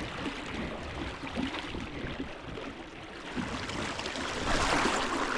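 River water running and lapping, a steady rushing noise that grows louder near the end.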